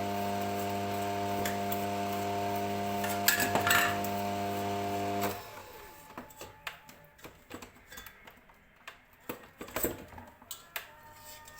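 Electric mixer motor running with a steady hum through cake batter, with a brief clatter a little after three seconds, then switched off about five seconds in. Light clicks and knocks of bowl and utensils follow.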